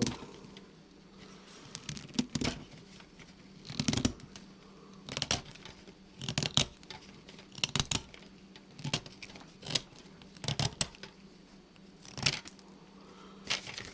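A multi-tool's knife blade shaving wood off a pencil to sharpen it, in repeated short scraping strokes about one a second.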